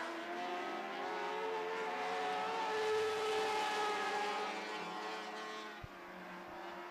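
Lightning sprint cars' motorcycle engines running at racing speed, pitch rising and falling as they power around the dirt oval. The sound swells about three seconds in and fades near the end.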